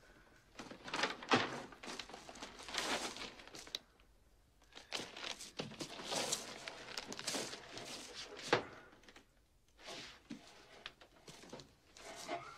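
Gift-wrapped boxes being shuffled and lifted off wooden rafters: irregular rustling and scraping of paper and cardboard, with a couple of sharp knocks about a second in and again near the middle.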